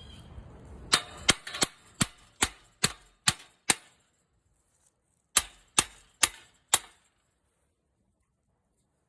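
Hammer striking the steel hinge fittings of a chain-link fence gate to knock them outward: eight sharp metallic blows at a steady pace, a short pause, then four more.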